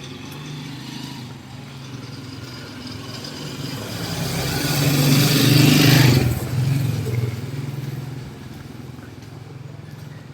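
Street traffic: a steady low engine hum, with a motor vehicle passing close by. It rises to a peak about five to six seconds in and then falls away quickly.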